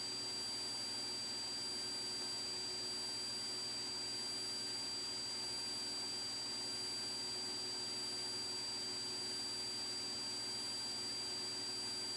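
Aircraft intercom audio feed with no one talking: a steady faint hiss carrying a thin, high-pitched electronic whine and a low hum, unchanging throughout.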